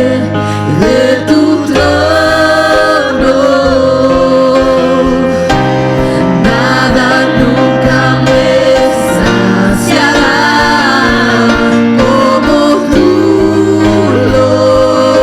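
Gospel worship music: voices singing over sustained band chords and held bass notes.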